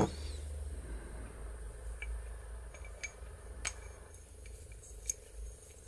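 Small metal window-handle parts being handled on a workbench: a sharp click at the start, then a few faint, scattered metallic clinks and ticks.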